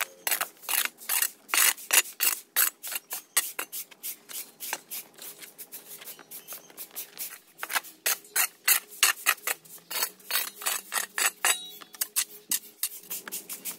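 Quick, repeated scraping strokes against a surface, about three or four a second, thinning out for a couple of seconds midway before picking up again.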